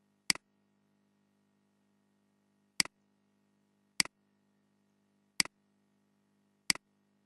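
Computer mouse clicked five times at uneven intervals, each click a sharp press followed at once by a softer release, over a faint steady hum.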